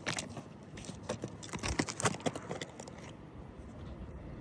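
A rapid run of light clicks, taps and scrapes, like gear being handled, lasting about three seconds before dying away to a low background.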